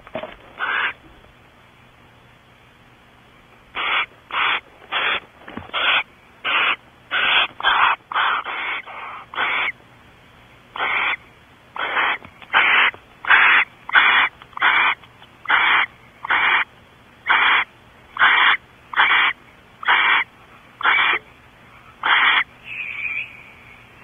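Barn owl in the nest box giving a long series of harsh hissing screeches, about one every 0.7 seconds with a short pause partway through. The calls are agitated calls at an intruder owl near the cavity.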